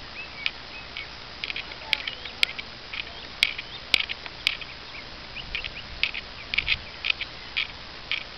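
Birds chirping in short, scattered calls, with a few sharp clicks among them.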